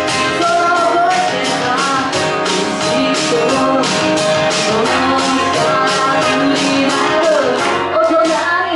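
A woman singing a pop ballad live into a handheld microphone, her voice amplified over a music accompaniment with a steady beat.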